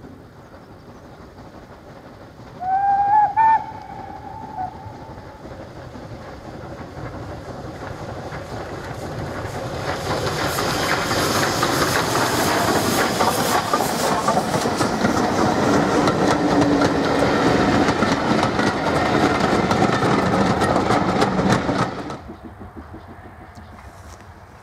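Southern Railway Schools class 4-4-0 steam locomotive No. 925 'Cheltenham' hauling a train of coaches. It gives a short whistle about three seconds in. Then the sound of the locomotive working and of wheels clattering over the rails builds as the train nears, stays loud as it passes, and cuts off abruptly near the end.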